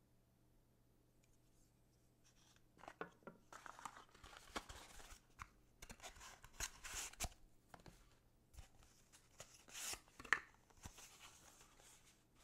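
Knife unboxing packaging being handled: irregular rustling, scraping and light clicks of box and wrapping, starting about two seconds in, with one sharper click near the end.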